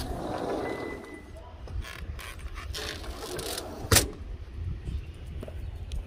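A glass patio door being opened, with the rattle of its handle and frame and a short squeak about a second in, then a sharp click about four seconds in.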